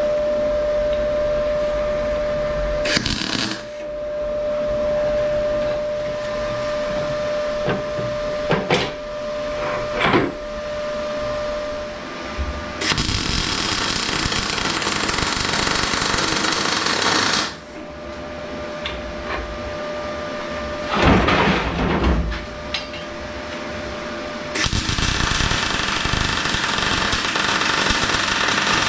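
Electric arc welding on steel, crackling and hissing in two long bursts of about five and four seconds, the first around halfway and the second near the end. Before the welding there is a steady machine hum with a few sharp metal knocks.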